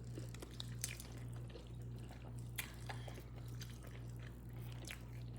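A person eating saucy hot wings close to the microphone: scattered short wet clicks and smacks of chewing, over a steady low hum.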